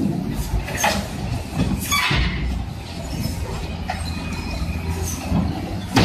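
Heavy front-end loaders' engines rumbling steadily, with several sharp metal clanks and a scraping screech, the loudest about two seconds in.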